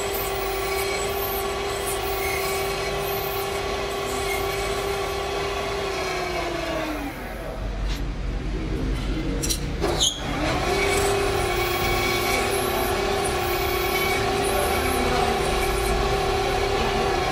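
Metal lathe running with a steady hum, then switched off about six seconds in and winding down with falling pitch. After a few sharp clicks around ten seconds in, the lathe starts again and runs steadily.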